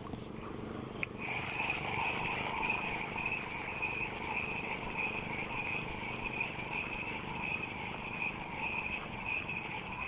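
Spinning fishing reel being cranked, its gears giving a steady whirr with a rhythmic ripple as line is reeled in on a hooked fish. The whirr starts right after a sharp click about a second in.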